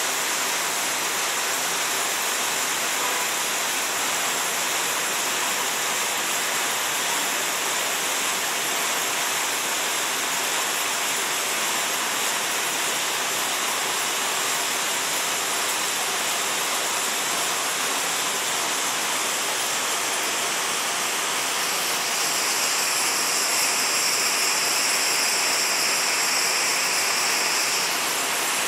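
Rows of bobbin braiding machines running together, braiding drawstring cord: a steady, dense mechanical din with a high hiss, growing slightly louder and sharper about three quarters of the way in.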